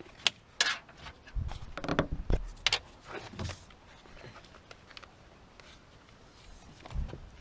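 Sharp clicks and knocks of plastic parts being handled and prised off a car door lock assembly, several in quick succession over the first few seconds, then one duller knock near the end.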